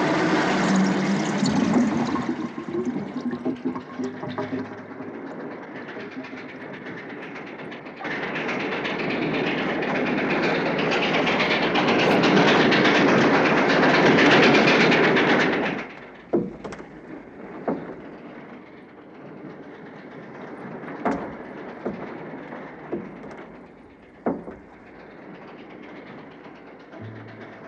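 Steam locomotive hauling passenger cars, a loud steady rush of steam and rolling wheels on the rails. It drops off suddenly a little over halfway through to a quiet background with a few isolated sharp knocks.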